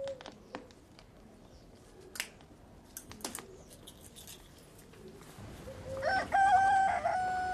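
A rooster crows once near the end, a long call held on one pitch. Before it there are a few faint, scattered clicks over a quiet background.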